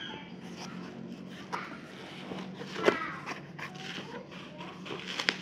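Cardboard shipping box being opened and handled by hand: flaps rustling and scraping, with a few sharp knocks, the loudest about halfway through, and crinkling plastic wrap near the end. A steady low hum runs underneath.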